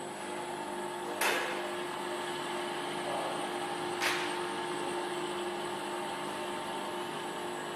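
Automatic straight-knife sharpening machine running, its grinding-wheel motor giving a steady whine and hum over a hiss, with two brief loud rasps about three seconds apart.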